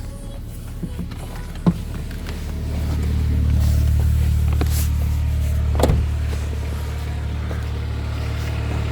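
Saab 9-5's B235 2.3-litre turbocharged four-cylinder engine idling with timing-chain noise, its steady hum growing louder about three seconds in. Two sharp clicks come through, the stronger about six seconds in.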